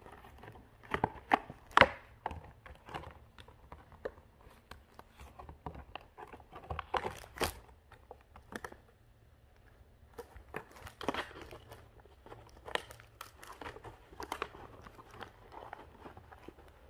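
French bulldog puppy biting and shoving a clear plastic blister pack with a cardboard back. The stiff plastic crinkles and crackles irregularly, loudest about two seconds in and again about seven and a half seconds in.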